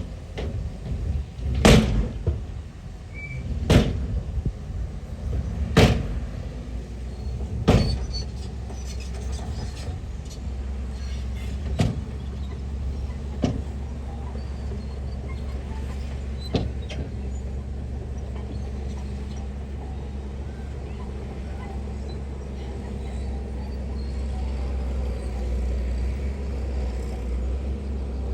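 Heavy construction machine's diesel engine running with a steady low rumble. Four loud sharp knocks come about two seconds apart early on, then a few weaker knocks.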